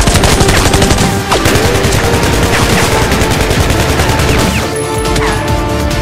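Rapid, continuous volleys of gunfire sound effects over background music.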